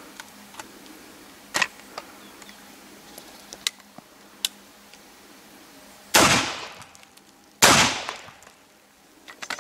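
Two shots from an antique Lancaster 12-gauge double-barrelled shotgun firing black-powder cartridges, about a second and a half apart, each trailing off in a long echo. Before them come a few light metallic clicks as the gun is loaded and closed.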